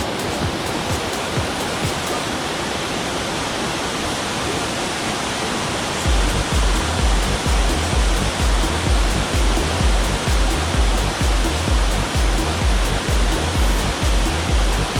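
Waterfall rushing steadily, with background music; a deep, regular bass beat comes in about six seconds in.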